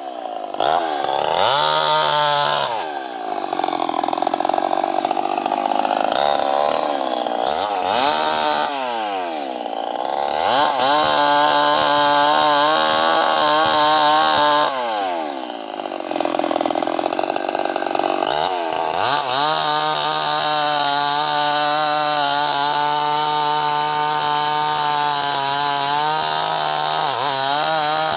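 Two-stroke chainsaw revving up and down several times, with long stretches held at steady high revs while cutting into a mahogany tree.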